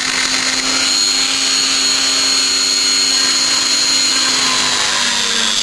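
A small high-speed rotary grinder runs with a steady high whine while it scours the defective spot on a truck radiator clean for soldering. Its pitch dips slightly near the end.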